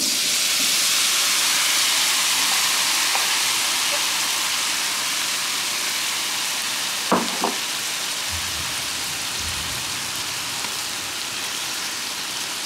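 Sliced mushrooms sizzling on a hot, oiled electric griddle plate at 365°F, starting abruptly as they hit the surface and slowly fading. About seven seconds in, two quick knocks of a utensil on the griddle.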